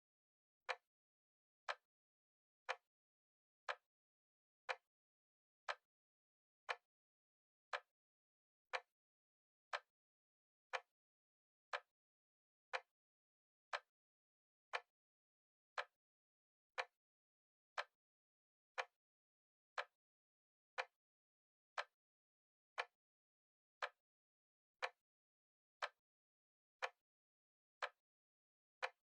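A clock ticking steadily once a second, each tick a short, sharp click.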